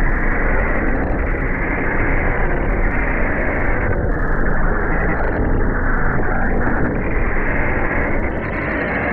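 Loud, heavily distorted effects audio: a logo soundtrack processed into a steady, harsh, muffled noise with no clear tune or voice.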